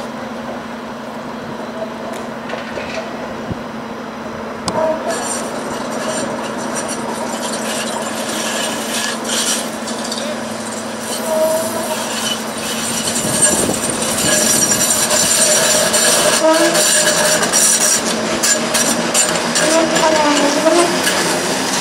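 TTC Flexity Outlook streetcar rounding a tight loop track and drawing near, growing louder. From about five seconds in, its wheels squeal high-pitched on the curve.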